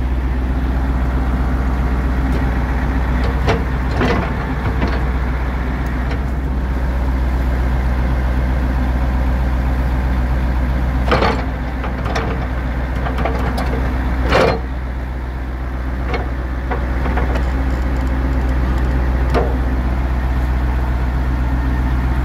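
Diesel engine of a Wirtgen W1900 cold milling machine running steadily, with a few sharp metallic knocks from the machine, the loudest about eleven and fourteen seconds in.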